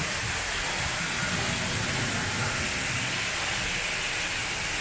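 Steady, even rushing hiss of the ride's rainforest water effects, like heavy rain or a waterfall.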